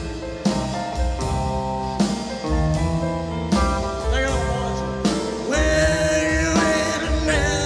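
Live rock-and-roll band playing with drum kit, electric guitar, bass and keyboards, steady drum hits driving it, with singing over the band in the second half.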